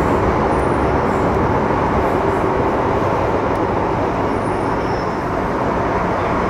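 Running noise of an MTR Metro Cammell M-Train (C250 I-Stock) electric multiple unit heard from inside the car: a steady, loud rumble of wheels on rail, with faint steady electrical tones from the train's Mitsubishi chopper traction equipment.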